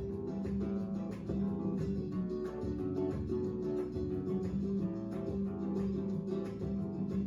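Background music: acoustic guitar playing, plucked and strummed at a steady pace.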